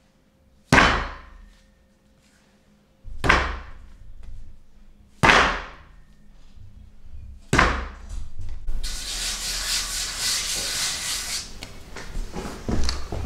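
Bread dough being kneaded by hand on a silicone mat: four heavy slaps or pushes about two seconds apart, each trailing off, then a few seconds of steady rubbing.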